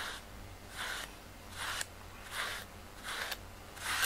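A cat sniffing or breathing right at the microphone: short, even puffs of breath about every three quarters of a second.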